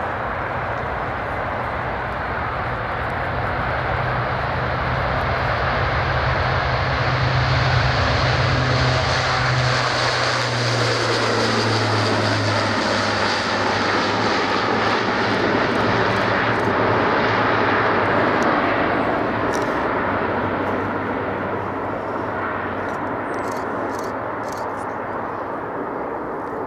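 Four Europrop TP400 turboprop engines of an Airbus A400M Atlas transport at take-off power, a steady low drone with propeller noise as it rolls, lifts off and climbs past. It swells to its loudest in the middle, drops slightly in pitch as the aircraft passes, and fades toward the end.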